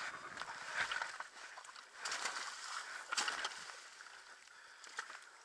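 Trail motorbike rolling down a rocky, wet stream bed: water splashing and stones knocking under the tyres, in louder bursts about one, two and three seconds in.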